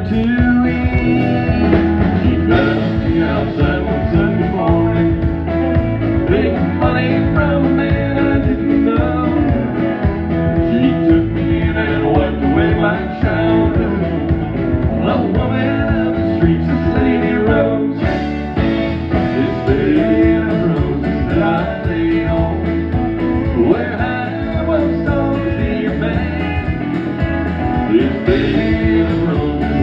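Country song performed by male singers with guitar and band accompaniment.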